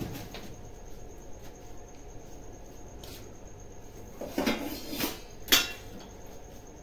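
Insects chirring steadily at a high pitch, with a few sharp knocks or clatters about four and a half seconds in and a louder single one about a second later.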